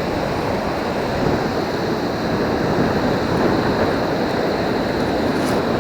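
Surf washing on the beach with wind buffeting the microphone: a steady, loud rush of noise with no breaks.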